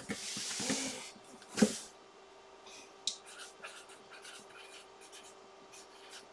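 Felt-tip marker writing on a cardboard box, heard as a run of faint short scratchy strokes from about two and a half seconds in. Before that the cardboard box is handled with a rustle, and there is a brief louder sound about a second and a half in.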